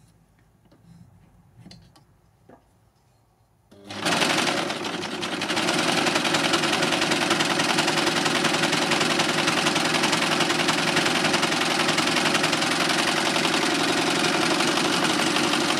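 A few faint clicks, then about four seconds in a Success Lucie four-thread overlocker (serger) starts and runs steadily at an even speed, stitching a test seam to check its freshly tightened looper tensions.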